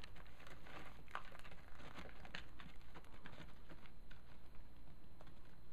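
Scattered light crunching steps on dry dirt and grass, irregular and soft, over a steady low background rumble.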